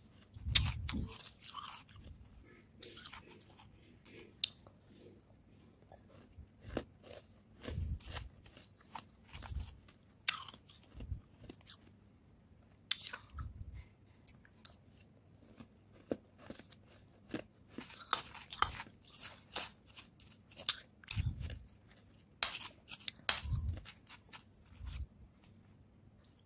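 Powdery freezer frost crunching as it is chewed and scooped with a metal spoon: irregular crisp crunches, bunched in quick runs in the second half, with a few low thumps.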